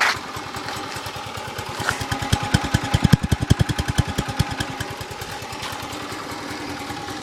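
1981 Honda C70 Passport's 72 cc single-cylinder four-stroke engine idling with an even run of firing pulses, which grow heavier and louder for about two seconds in the middle before settling back.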